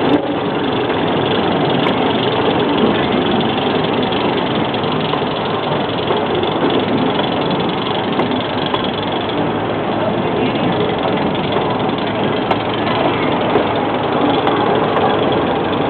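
Steady running noise of a narrow-gauge amusement-park train, heard from an open passenger car: the locomotive's engine running and the cars rolling along the track.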